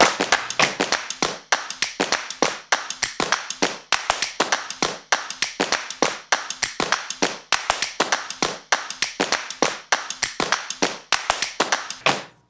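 Hands clapping: sparse applause from a few people, separate sharp claps at an uneven pace of about five a second, stopping suddenly near the end.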